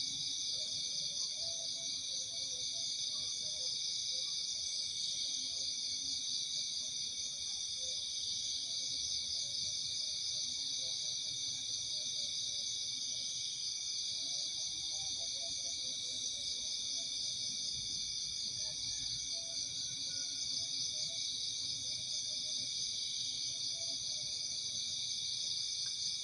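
Dense insect chorus of crickets and other night insects: a steady, fast-pulsing trilling at several high pitches, with faint scattered low chirps underneath.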